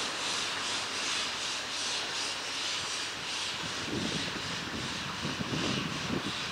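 Ol49 steam locomotive pulling away with a passenger train, its exhaust chuffing as an even hiss at about two beats a second. Low rumbling knocks come in the second half.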